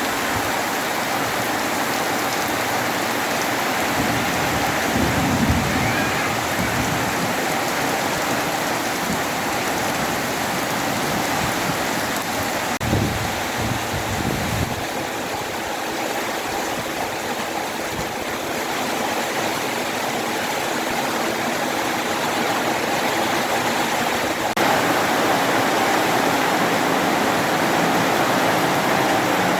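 Heavy rain pouring steadily in strong wind, a dense even hiss, with two brief low rumbles and a little louder in the last few seconds.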